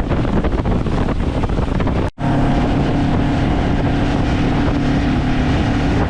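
A boat's motor running under heavy wind buffeting on the microphone; after a brief cut about two seconds in, a steady engine hum stands out plainly.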